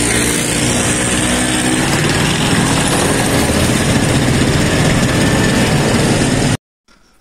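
Steady rushing noise of a moving vehicle: engine running under road and wind noise on the microphone, cutting off abruptly near the end.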